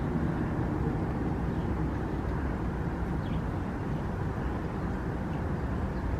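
Steady, even outdoor background rumble, strongest in the low range, with no distinct events.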